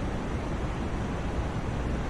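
Continuous white noise for sleep: a steady, even rush with the most weight in the low end, unchanging throughout.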